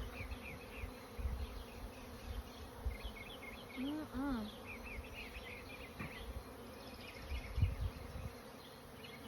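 Honeybees buzzing around an open hive, a steady hum, with a louder buzz swelling and falling in pitch twice about four seconds in as bees fly close past.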